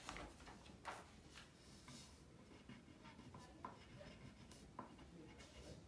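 Faint scratching of a coloured pencil on paper in short, irregular strokes.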